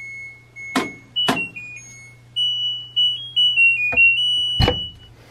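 LG front-loading washer playing its electronic beep tune at the end of the cycle: a string of single high beeps stepping up and down in pitch. A few sharp clicks cut in, and a heavier thump near the end as the door latch is pulled open.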